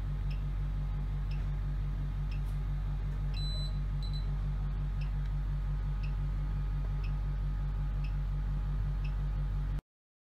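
Veterinary MLS laser therapy unit running during treatment: a steady low hum that pulses rapidly, with faint regular ticks and two short high beeps a little after three seconds in. The sound cuts off abruptly near the end.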